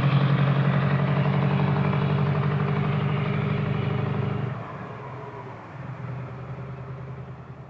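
Scania 164L 580 Torpedo's V8 diesel engine pulling away, a low, steady drone that fades as the truck drives off. The sound drops off sharply about four and a half seconds in, swells briefly a second later, then keeps fading into the distance.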